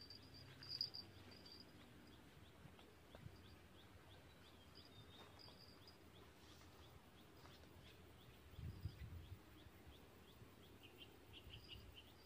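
Faint outdoor ambience of high, quick chirps repeating a few times a second, with a short cluster of brighter bird calls near the end. A brief low rumble comes about nine seconds in.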